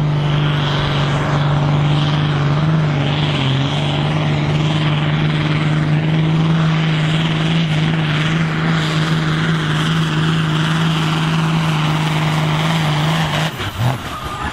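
Ford tractor's diesel engine run at full load on a pulling sled, holding a steady, loud note. It drops off abruptly about a second before the end as the pull finishes.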